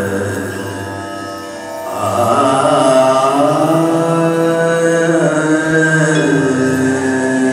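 Slow Indian-style song with long, drawn-out sung notes played for a dance; it softens about a second in and swells again at about two seconds.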